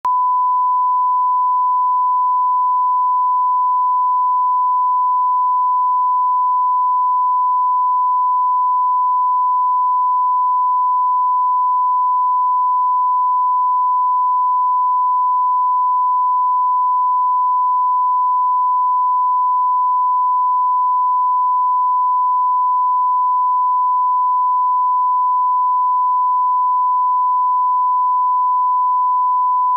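Steady 1 kHz reference test tone of a bars-and-tone video leader: one pure, unwavering tone held at a constant level.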